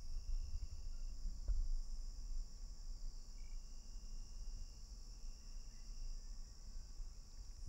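Steady, high-pitched insect chorus, crickets trilling without a break, over a low rumble.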